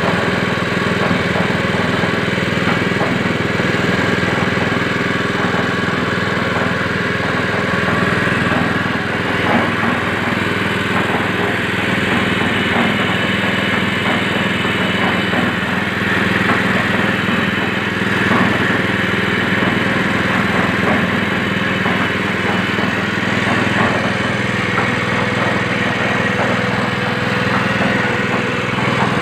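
Honda GX160 single-cylinder four-stroke engine running steadily at a constant speed, driving a concrete mixer through its belt and pulley.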